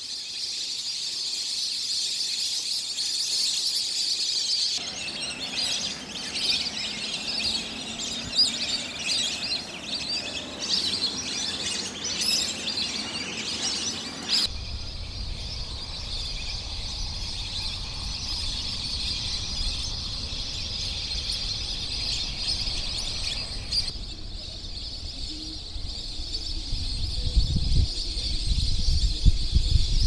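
Many birds chirping and calling over a steady high hiss, busiest for several seconds in the first half. In the later part a low rumble comes in and grows strongest near the end.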